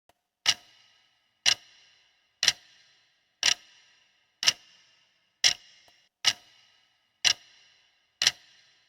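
Countdown clock-tick sound effect marking the answer time: sharp single ticks about once a second, nine in all, each with a brief ring.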